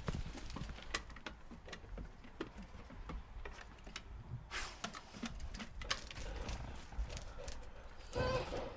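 Dog whining: mostly scattered clicks and knocks over a low rumble, with one short high whine near the end.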